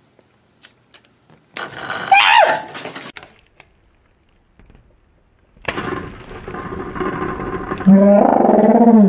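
A few sharp snips of scissors cutting into a balloon stress ball filled with water beads, then a short pitched cry. About halfway through, a loud drawn-out cry with a rising and falling pitch begins and grows louder near the end as the ball bursts open.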